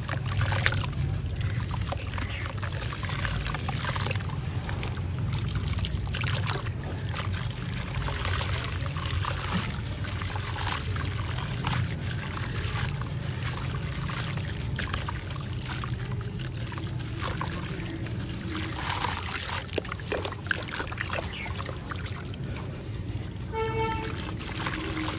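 Dry sand-and-cement chunks crumbling in the hands: a steady run of gritty crackling and crunching, with grit and crumbs trickling and pattering into a tub of water. A steady low rumble runs underneath, and a short pitched tone sounds once near the end.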